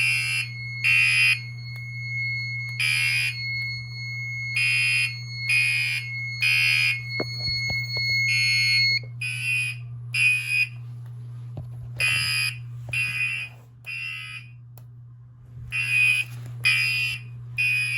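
Gentex Commander 3 fire alarm horn, its horn taped over, sounding an evacuation signal: short blasts in repeating groups of three with pauses between. A steady high tone sounds with it and stops about halfway.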